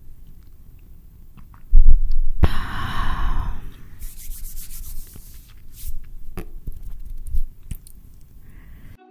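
Close-miked handling noise: a heavy low thump about two seconds in, then rubbing and brushing sounds with scattered small clicks.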